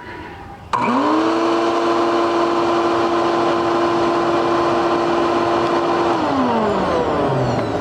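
Shop vac motor used as a forge blower, switching on with a whine that quickly rises to a steady pitch over a rush of air. It winds down, pitch falling, about six seconds in.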